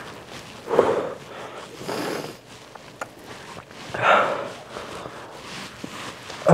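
A man breathing hard through his nose and mouth, with sharp noisy sniffs and exhalations every second or two and a short groan right at the end: a pained reaction to the burn of an extremely hot chili chip.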